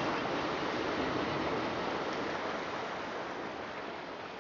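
Ocean waves washing in a steady rushing noise, slowly fading out.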